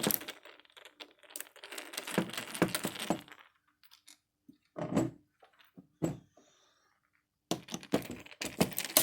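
Screws being backed out of a mortise lock body's metal case with a screwdriver: bursts of small metal clicks and scrapes, with a couple of sharper knocks midway.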